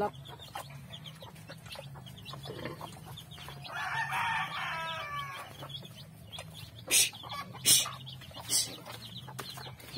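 A rooster crows once, about three and a half seconds in, a call of about two seconds. Near the end come three loud, sharp cracks as a sow bites into a husked coconut at her trough.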